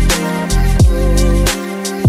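Background music: a mellow instrumental beat with a thudding kick drum and sustained keys and bass notes.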